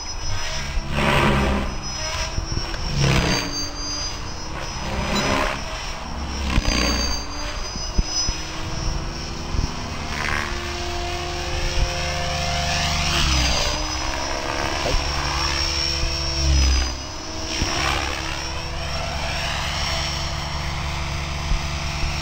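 Electric Mikado Logo 500 radio-controlled helicopter in aerobatic flight. Its motor and rotor give a high whine that rises and falls as it manoeuvres, with repeated whooshes of the main rotor blades as it flips and turns.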